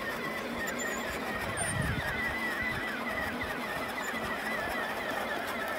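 Battery-powered Power Wheels Kawasaki Brute Force ride-on ATV driving over grass: its electric motor and gearbox whine steadily with a high, wavering squeal over the rumble of the plastic wheels.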